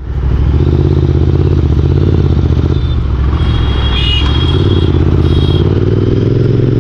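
Motorcycle engine running steadily as the bike is ridden, a low pulsing hum, starting after a brief dropout at the very beginning. A few faint high-pitched tones come in around the middle.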